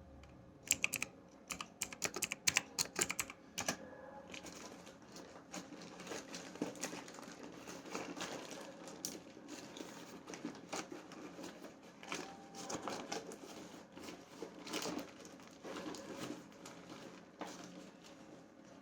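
Hands handling packaging and plastic parts: a quick run of sharp clicks and taps in the first few seconds, then lighter scattered clicks with rustling and crinkling.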